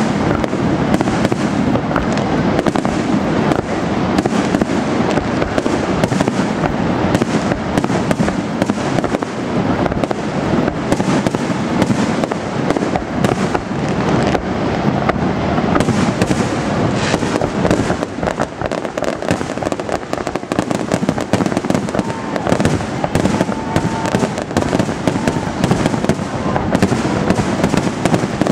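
Fireworks display: a loud, dense, continuous barrage of bangs and crackles with no pause.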